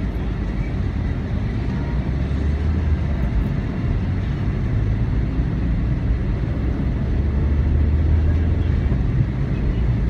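Steady low rumble of a car driving, engine and tyre noise heard from inside the cabin.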